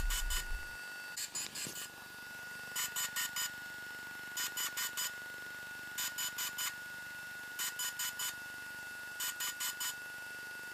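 DJI Phantom 3 drone beeping in repeated sets of four short, quick beeps about every second and a half, over a steady faint high tone: the signal that a firmware upgrade is in progress.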